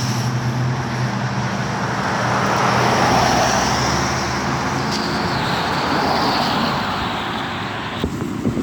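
Traffic passing on a rain-wet highway: a vehicle's tyres hissing on the wet road over a low engine hum, swelling to its loudest about three seconds in and fading away. A few sharp clicks near the end.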